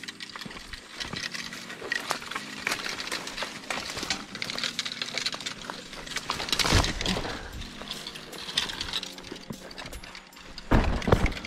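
Rustling brush and the clicks and knocks of fishing rods and a plastic bait bucket as a person climbs down a rocky bank. There is a louder knock about seven seconds in and a couple of thuds near the end.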